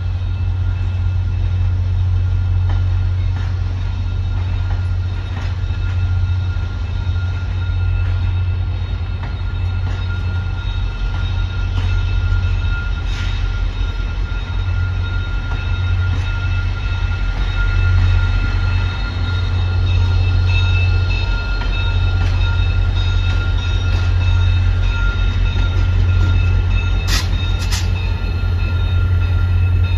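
VIA Rail passenger train pulling out of the station, its cars rolling past with a steady low rumble. A thin steady high whine runs above it, and there are scattered clicks of wheels over rail joints, two sharper ones near the end.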